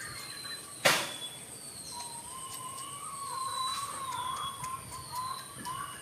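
Birds calling: a high whistled note that falls in pitch, repeated about once a second, joined from about two seconds in by a lower, wavering call. A single sharp click about a second in is the loudest sound, over a steady high hiss.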